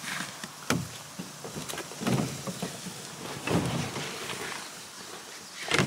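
Dry bags being lifted and set into a canoe: a few dull knocks against the hull, about one every second and a half, with rustling of the bags.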